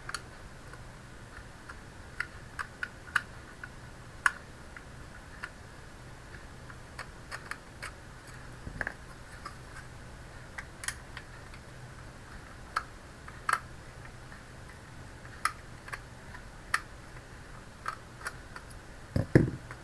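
Scattered small clicks and ticks of a screwdriver and fingers working the screws that hold the SSD in an all-in-one PC, over a faint steady low hum, with a louder knock near the end.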